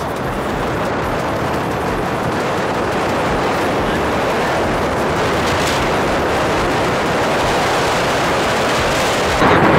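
Wind buffeting the microphone of a moving motorbike, a steady dense rushing noise with road noise under it; it jumps louder a little before the end.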